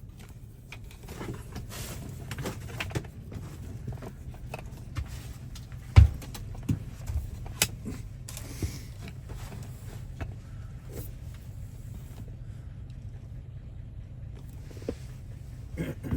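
Metal key and lock parts being handled: scattered clicks and knocks, with one loud knock about six seconds in, over a steady low hum.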